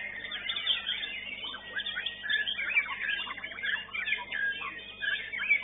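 White-rumped shama (murai batu) singing a fast, varied song: a continuous run of quick rising and falling whistles and chirps.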